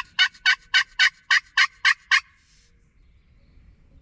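A series of about nine hen-turkey yelps, roughly four a second, loud and close, ending about two seconds in. This is the hunter's turkey call, raspy and evenly paced.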